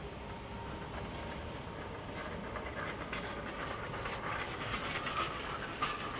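Ultrasonic sewing machine running as it seals fabric: a steady mechanical hum with scattered light clicks and a faint whine that grows a little stronger near the end.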